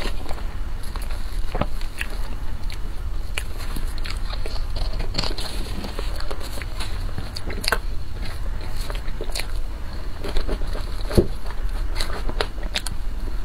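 Close-miked mouth sounds of eating soft cream cake: wet smacks and chewing clicks at irregular intervals, with a plastic spoon now and then scraping and tapping into the cake.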